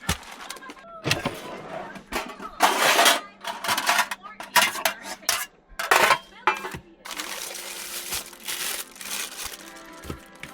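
Clattering and knocking of cookware and food packaging being handled and set out for cooking, a string of sharp clicks and rustles.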